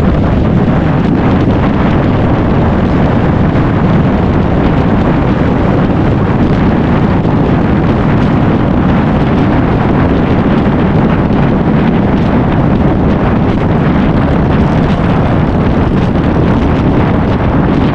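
Steady, loud wind rush over the microphone of a camera on a motorcycle riding at speed, with engine and road noise underneath.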